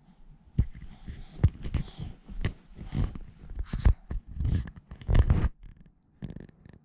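Handling noise on a camera body: a dense run of knocks, clicks and rubbing as the camera is grabbed and pressed against skin. It starts about half a second in and thins out to a few light clicks near the end.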